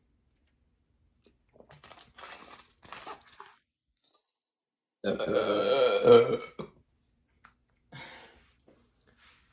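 A woman's long, loud belch of gas from carbonated water, with a wavering pitch, starting about five seconds in and lasting nearly two seconds. A few faint short sounds come before it.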